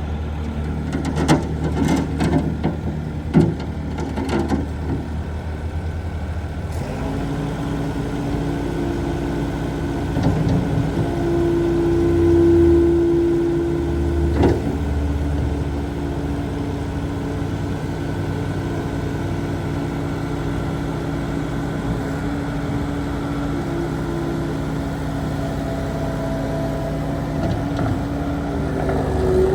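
Diesel engine of a New Holland L230 skid steer loader running steadily, with a few sharp clanks in the first few seconds. The engine note changes about seven seconds in.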